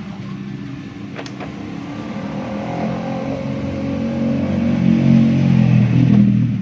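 A motor running with a low hum that grows louder over several seconds and drops off near the end. A sharp click comes about a second in.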